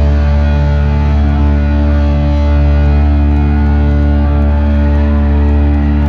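Live rock band playing loudly through an arena PA, electric guitars holding a sustained low chord without vocals.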